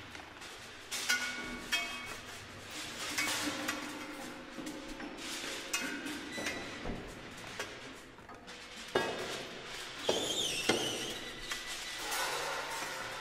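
Experimental contemporary piece played on objects: scattered metallic clinks, knocks and scrapes, over a low sustained tone in the first half. A high wavering squeal comes in about ten seconds in.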